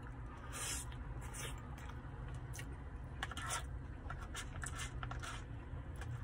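Plastic fork scraping and digging through chili cheese fries in a paper tray, alongside chewing. It comes as a series of short scrapes over a steady low hum.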